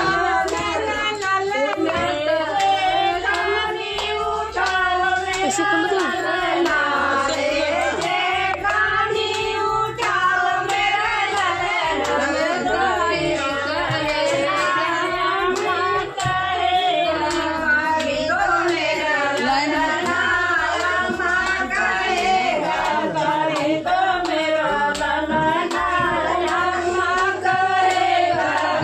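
A group of women singing a folk song together, with hands clapping in time.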